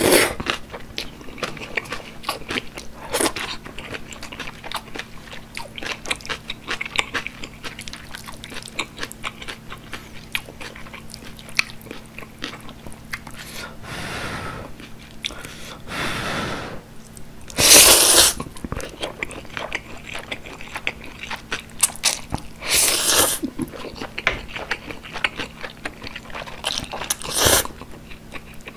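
Close-miked chewing of jjajang ramen noodles, with constant wet mouth clicks. Several loud noodle slurps break in, the loudest about two-thirds of the way through and another near the end.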